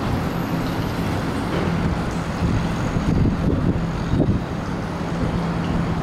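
Engine of a small trash skimmer boat, rated 62 hp, running steadily: a low, even hum over a rumble.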